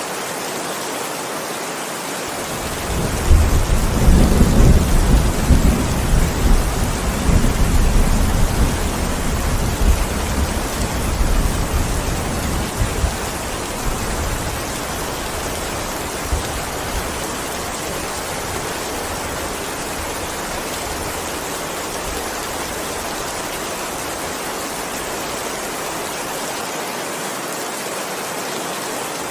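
Steady heavy rain hissing, with a long roll of thunder that rises about three seconds in, rumbles for several seconds and fades away by about fourteen seconds.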